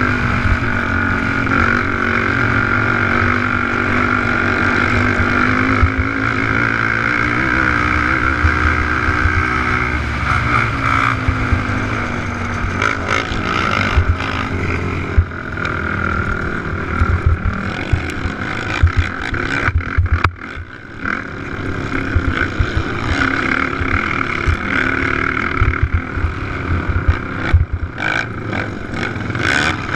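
Race quad's engine running hard under throttle, heard from a camera mounted on the machine with wind buffeting the microphone; the engine pitch rises and falls with the throttle. About twenty seconds in it drops off briefly, then comes back amid a run of sharp knocks and rattles from the rough track.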